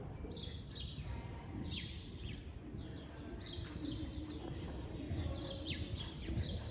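Small birds chirping: short, high chirps falling in pitch, about two a second, over a steady low rumble.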